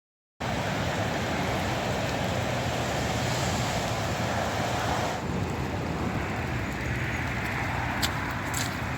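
Steady outdoor background noise, a low rumble with hiss, starting suddenly just after silence. It changes character about five seconds in, with a few short clicks near the end.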